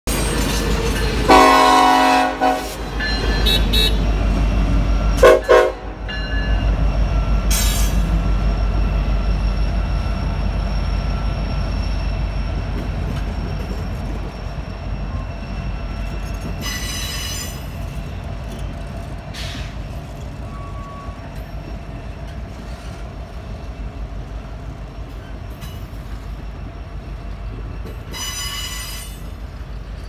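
Train horn sounds loudly about a second in, and a second, shorter horn blast follows about five seconds in. Then the Norfolk Southern passenger cars roll past with a steady rumble that slowly fades, broken by a few brief high wheel squeals.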